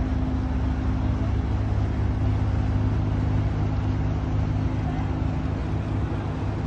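Boat engine running steadily: an even, low drone with a constant hum, heard from on board.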